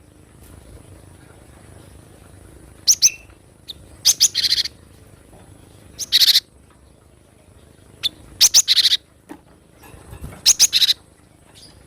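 Cinereous tit (gelatik batu) calling in short bursts of two to four quick, high, ringing notes, repeated about every two seconds.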